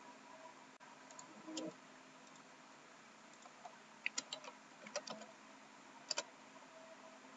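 Computer mouse clicks and keyboard keystrokes: a scattering of short sharp clicks, some in quick pairs, over a faint steady hiss.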